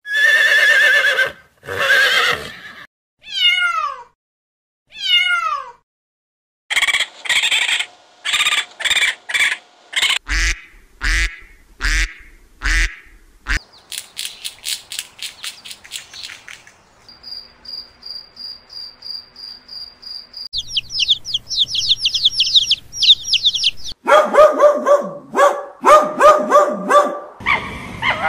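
A string of short animal-sound clips, one after another: a horse whinnying twice, a cat meowing twice with falling pitch, raccoon chittering, a duck quacking in a steady run, squirrel chatter, a cricket's steady pulsed chirp, a chick's fast peeping, a Labrador retriever barking, and the start of a red fox's call near the end.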